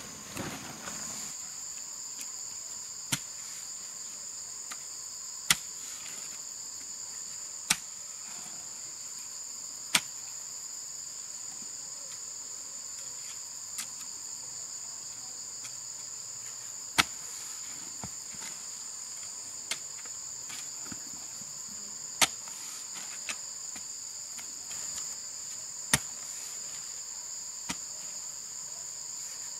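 Steady, high-pitched chorus of crickets or similar insects, cut by sharp, single knocks every few seconds, about eight in all.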